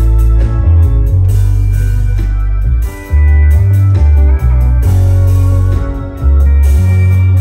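Live rock band playing a loud instrumental passage of guitar and drums, with a heavy bass low end that changes note in steps. The sound briefly drops twice, about three and six seconds in.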